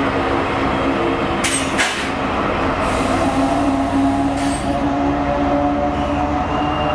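Colas Rail Freight Class 70 diesel locomotive 70801 passing and pulling away, its GE PowerHaul V16 diesel engine running with a steady droning note. Brief sharp noises cut in about one and a half and two seconds in, and again after about four seconds.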